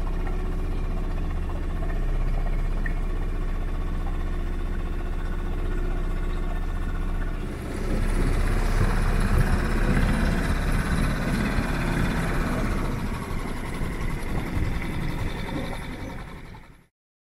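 Small outboard motor running steadily at low speed, pushing a Cygnet 20 trailer sailer along. About eight seconds in, the sound gets louder and rougher. It cuts off suddenly near the end.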